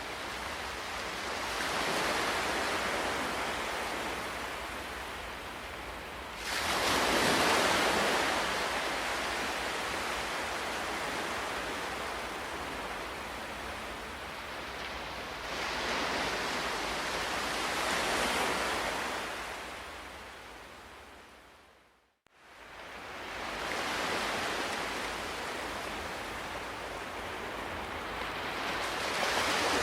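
Ocean waves breaking and washing on a shore, swelling into louder surges every several seconds. About two-thirds of the way through, the sound fades to silence for a moment and then comes back.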